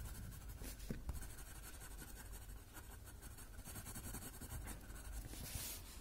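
Graphite pencil scratching faintly across a paper Zentangle tile in short shading strokes, with a stronger stroke near the end.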